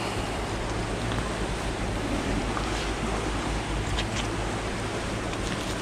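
Steady rushing wind noise on the microphone, with a few faint clicks as a wet rope is hauled in by hand.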